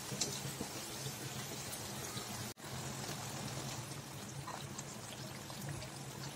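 Small maida papdi puris deep-frying in hot oil in a steel kadhai: a steady sizzle and bubbling that cuts out for an instant about two and a half seconds in.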